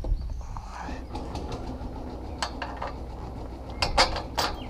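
A steel roof-rack leg bracket and its bolt being worked by hand: a few light metal clicks about a second in, then a cluster of sharper metal knocks near the end as the bolt is pushed through the bracket. A steady low rumble runs underneath.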